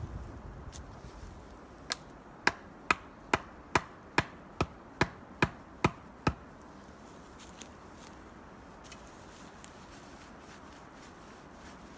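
A hand tool striking wood in a steady rhythm: about ten sharp, even blows, a little over two a second, that stop about halfway through.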